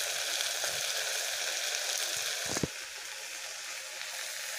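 Okra frying in a covered iron kadhai, a steady sizzling hiss. A single short knock a little past halfway, after which the sizzle is quieter.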